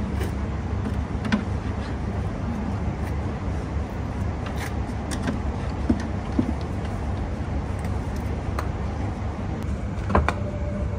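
Steady low street rumble, with a few light wooden knocks and clacks as a noren curtain rod is set over a doorway and a small wooden sign is hung up, the sharpest near the end.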